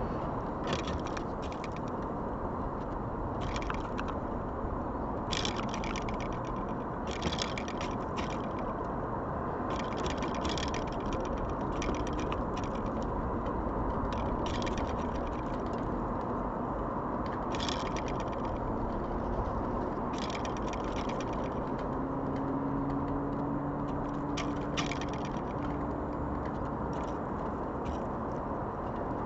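Irregular bursts of quick sharp taps and scrapes, typical of birds pecking and scrabbling at food on a roof, over a steady background rumble.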